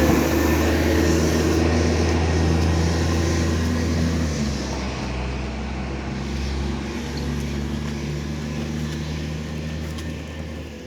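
Iveco ACCO garbage truck's diesel engine running steadily. It drops in pitch about four seconds in and fades toward the end.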